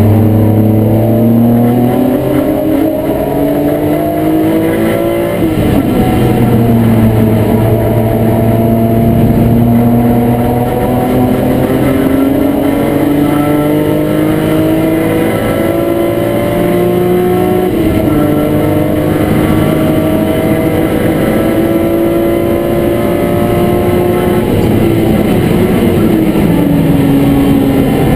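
BMW E36 M3 race car's straight-six engine heard from inside the cockpit at full throttle. The engine note climbs, drops sharply at an upshift about five seconds in, then climbs slowly for most of the rest and falls near the end as the car slows.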